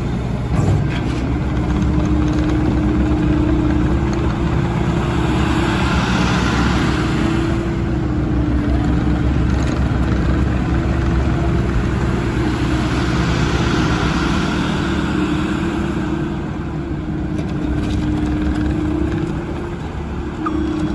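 The 90 hp FPT diesel engine of a Case TV380 rubber-tracked skid steer running steadily, with louder, hissier swells about six and thirteen seconds in.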